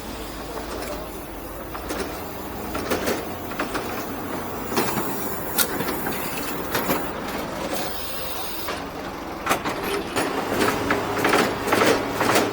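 Irregular knocks, clanks and rattles over a steady low mechanical hum, more frequent in the last few seconds.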